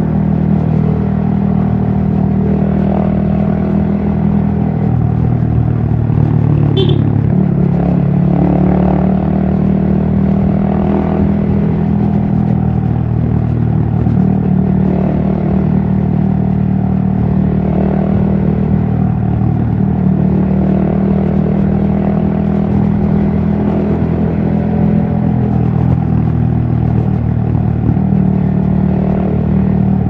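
Yamaha XSR155's single-cylinder 155 cc four-stroke engine running under way at road speed, heard from the rider's position. Its note holds steady, shifting a little in pitch every few seconds as the throttle opens and closes.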